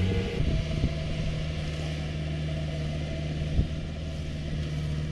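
Kubota combine harvester's diesel engine running steadily, a low even hum, with a single sharp knock about three and a half seconds in.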